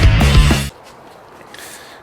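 Loud rock music with distorted guitar and drums that cuts off abruptly under a second in, leaving a low background hiss.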